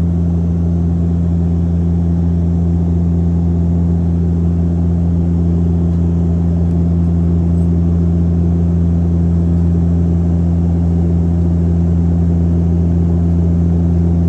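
Steady drone of an aircraft's engines heard inside the passenger cabin: a deep, even hum with a second tone above it, unchanging throughout.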